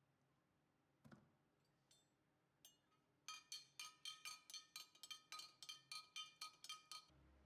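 A spoon clinking against the inside of a glass jug while stirring sharbat into milk: a quick run of ringing clinks, about four a second, for nearly four seconds. A single soft knock comes about a second in.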